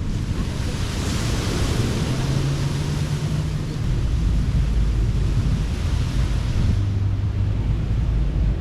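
Surf washing onto a beach, the wash hissing up about a second in and easing off near the end, with wind rumbling on the microphone.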